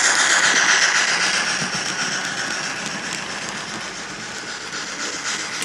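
Model steam locomotive with a digital sound decoder, giving out steam hiss and chuffing from its small loudspeaker as it runs with a train of goods wagons. The sound slowly fades as the train moves away.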